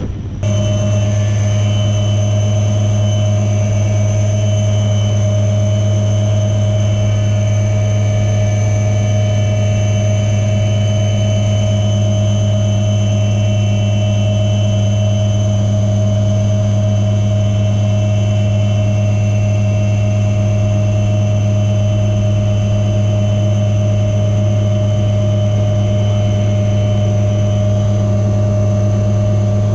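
HAL Dhruv twin-engine helicopter in flight, heard from on board: a loud, unchanging drone of rotors and turbines, a low hum with a thin high whine above it. It cuts in abruptly about half a second in.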